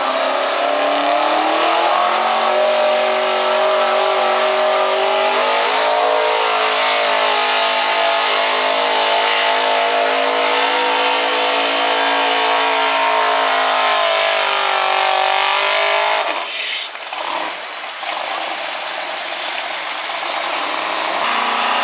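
GMC Sierra pickup's gas engine running at high revs under load while pulling a sled. Its pitch climbs at the start and again about six seconds in, holds high, then drops off abruptly about sixteen seconds in as the pull ends.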